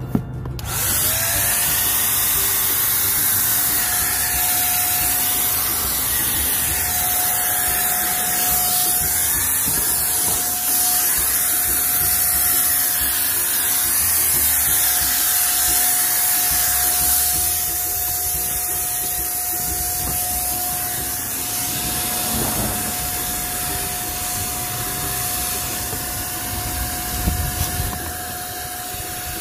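Handheld electric paint sprayer running and spraying paint: a steady hiss of spray over a high motor whine that rises as the motor spins up about a second in, then holds steady.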